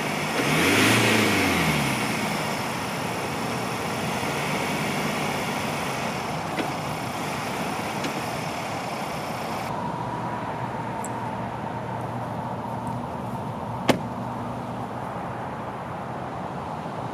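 Ford Ranger pickup's engine revs up and back down about a second in while the truck is stuck in mud, then keeps running steadily. About three seconds before the end there is one sharp bang, the truck's door being shut.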